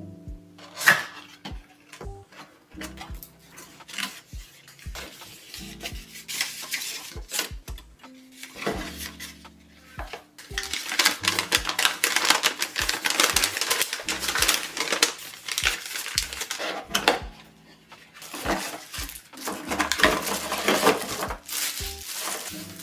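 Unboxing handling sounds: scattered clicks and taps, then long stretches of rustling and crinkling packaging from about halfway through, over quiet background music.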